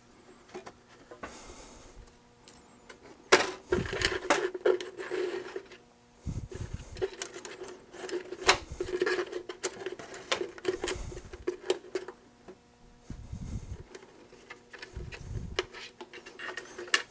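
Hands working the wiring harness and connectors inside an Osborne 1 computer: irregular plastic clicks, rustling of wires and a few dull knocks against the chassis.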